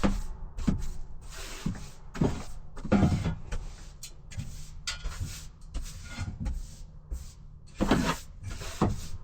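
Tools being picked up and put away during a clean-up: irregular clatters, knocks and rustling, with louder knocks about three seconds in and near the end.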